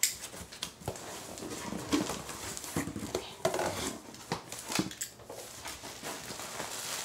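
Rustling and handling of packing material and items in a cardboard produce delivery box, an irregular crinkling and shuffling.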